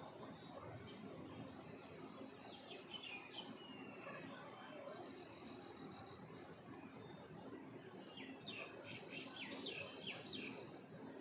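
Faint, steady high-pitched insect chorus, with bird chirps a few seconds in and a quick run of chirps near the end.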